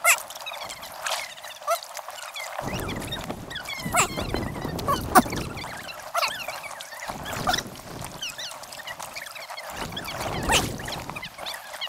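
Sped-up time-lapse sound of kayak paddling on a river: scattered clicks and knocks from the paddles and boat, stretches of rushing water, and short high chirps.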